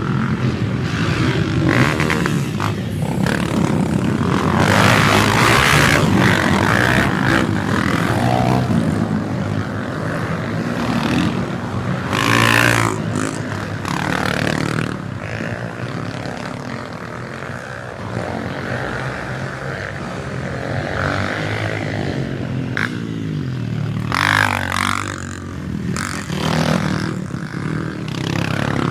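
Motocross dirt bike engines running and revving hard, with several louder surges of high revving through the stretch.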